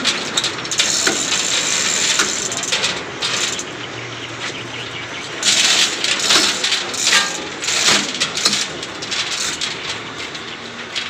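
Plastic stretch wrap crinkling and rustling in irregular bursts as it is handled, loudest in a cluster about halfway through.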